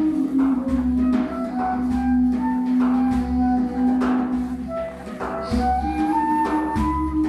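Egyptian Zar music: a flute-like wind melody playing over a held low drone note, with a steady drum beat.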